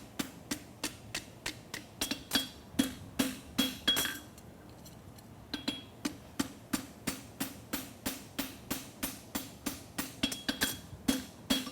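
Farrier's hammer striking a steel horseshoe on an anvil, a steady rhythm of about three ringing blows a second. The blows stop briefly near the middle, then resume at the same pace.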